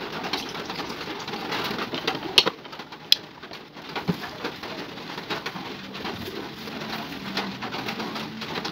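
Hand handling and dropping moringa leaves into a glass blender jar over ice: scattered clicks and rustling, with two sharp clicks about two and a half and three seconds in. A low steady tone joins in the last few seconds.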